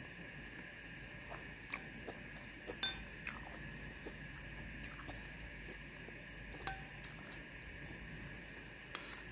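Metal spoon clinking and scraping against a ceramic plate while eating: about six sharp clinks with a brief ring, the loudest about three seconds in.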